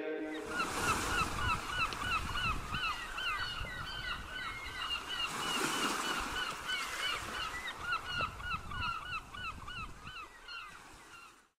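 A flock of birds calling over and over, short rising-and-falling squawks several a second, over a hiss of wind and water; it fades out near the end.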